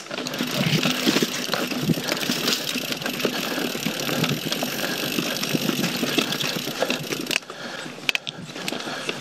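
YT Jeffsy mountain bike rolling fast down a dirt singletrack: knobby tyres on dirt and roots, with the chain and frame rattling and knocking over bumps. The noise drops about seven seconds in, leaving a few scattered clicks.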